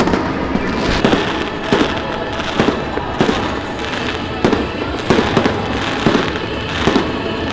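Fireworks going off: a string of sharp bangs, about one or two a second at irregular intervals, over continuous crackling.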